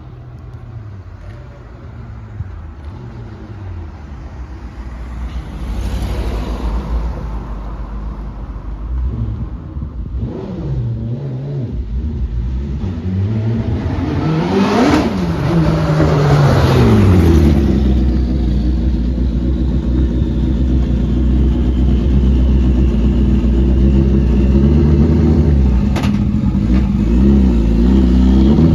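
Motorcycle engine in a home-built car running and revving, its pitch rising and falling several times, with the sound growing steadily louder. A sharp click comes near the end.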